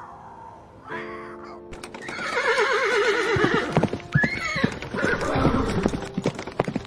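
A horse whinnying, a long quavering neigh that falls in pitch, followed by hooves clip-clopping in a quick run of sharp knocks. Music plays at the start.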